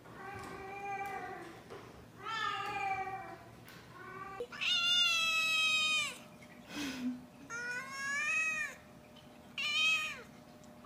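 Two domestic cats meowing: first three drawn-out meows from one cat, then a tabby kitten's louder, higher-pitched screaming meows, one after another every second or two.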